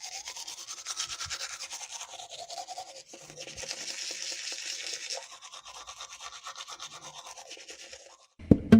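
Brisk rubbing or scrubbing strokes, several a second, stopping shortly before the end.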